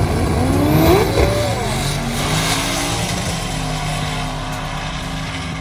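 Car engine revving hard, its pitch rising and falling about a second in, then running on steadily as the sound slowly fades.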